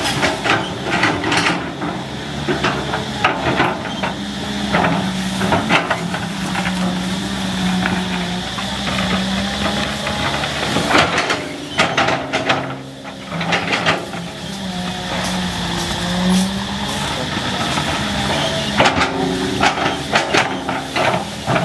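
Caterpillar 320C excavator's diesel engine working under varying load, its pitch rising and falling as the hydraulics are worked, with repeated sharp cracks and knocks as the machine breaks through brush and small trees.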